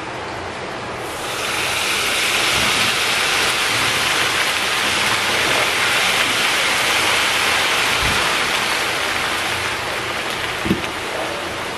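Hot cooking oil poured over coarsely pounded green chilies in an enamel bowl, sizzling loudly from about a second in and easing off near the end. A short knock comes near the end.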